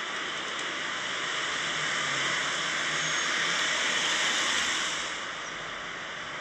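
A steady rushing hiss, with no clear tone or rhythm, that swells slightly and then eases off about five seconds in.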